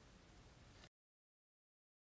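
Near silence: faint room tone for about the first second, then the sound cuts out completely.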